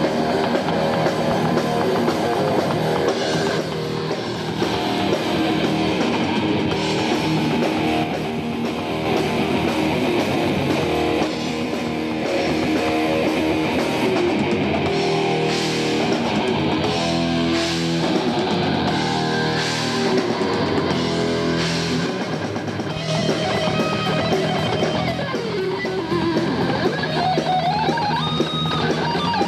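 Rock band playing hard rock, with distorted electric guitar over a drum kit. Guitar notes bend and glide near the end.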